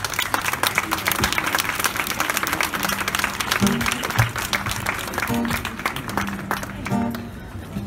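Audience applause that thins out and dies away about six seconds in, with a few held low notes from an acoustic guitar underneath.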